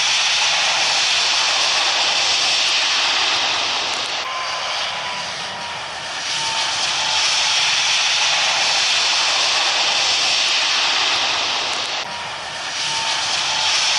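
Airbus A380 jet engines running with a steady loud rushing noise, broken twice by short dips after which a faint whine slides slightly lower.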